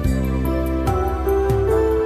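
Instrumental new-age music: sustained pitched notes with a melody moving between held tones, over a steady bass, with a few soft percussive strikes.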